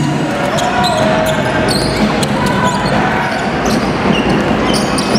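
A basketball bouncing on a hardwood court, with sneakers squeaking over the constant noise of a crowd in a large, echoing sports hall.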